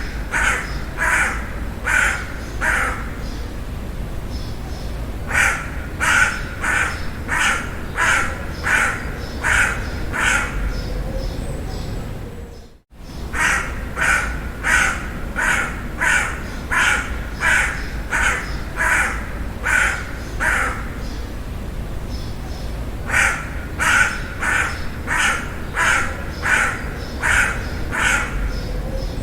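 A crow cawing in runs of short, evenly spaced caws, about two a second, broken by pauses of a few seconds, over a steady background hiss. The sound cuts out abruptly for a moment about 13 seconds in, where the recording loops.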